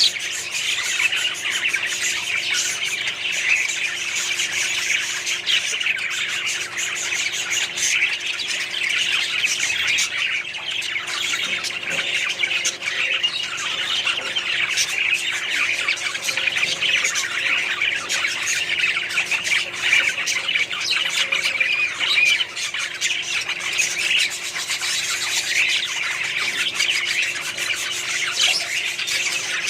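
Many parrots squawking and chirping together in a dense, unbroken chatter.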